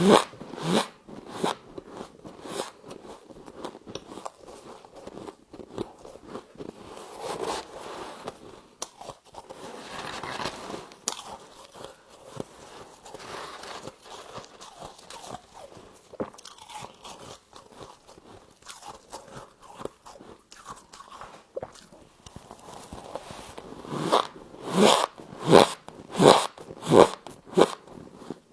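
A person biting and chewing frost close to the microphone: sharp crunches at the start, quieter crackly chewing through the middle, then a run of about five loud crunchy bites near the end.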